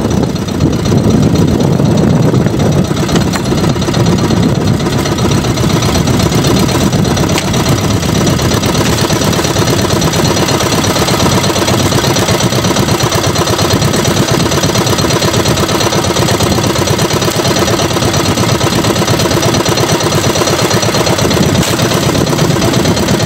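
Small boat engine idling steadily, a fast even knocking beat.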